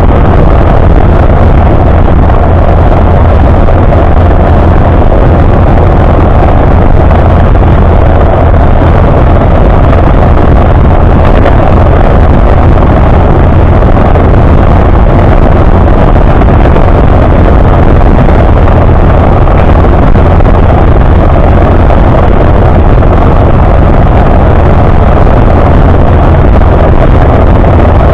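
Kawasaki KLR dual-sport motorcycle's single-cylinder engine running steadily while riding at road speed, very loud and unchanging on the bike-mounted camera.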